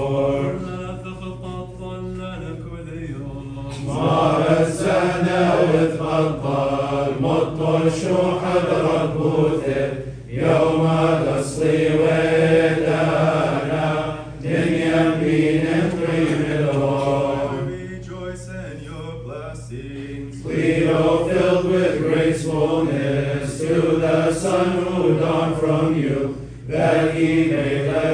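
Liturgical chanting in Chaldean Catholic rite. Voices sing long melismatic phrases separated by short breaks, over a steady low drone.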